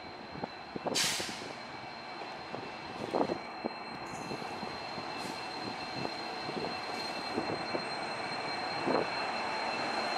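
A WDP4D diesel-electric locomotive (16-cylinder EMD two-stroke engine) running as it hauls a passenger train slowly along the platform, growing steadily louder as it nears. There are scattered knocks from the train and a short hiss of air about a second in.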